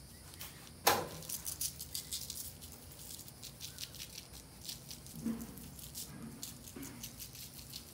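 Garlic salt being shaken from a shaker jar over fish fillets: a quick, dense rattle of grains, with a sharp click about a second in.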